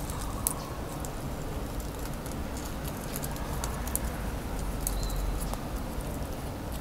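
Glossy plastic gift ribbon rustling and crinkling with faint scattered ticks as it is twisted and crossed between the fingers, over a low steady background hum.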